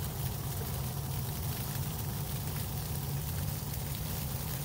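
Backpacking gas stove burner running under a stainless steel pot of water for coffee: a steady low rumble with an even hiss that does not change.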